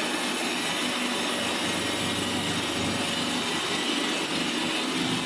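Steady machine noise, an even hiss with faint constant high tones, unchanging throughout.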